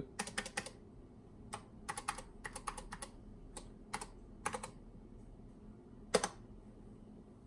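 Keys clicking on a Tandy 102 portable computer's keyboard as a line of text is typed, in quick irregular runs that stop after a few seconds. One louder key click comes about six seconds in.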